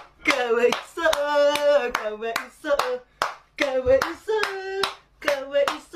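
A voice chanting short sing-song taunting phrases, with sharp hand claps between and under them, several claps in all.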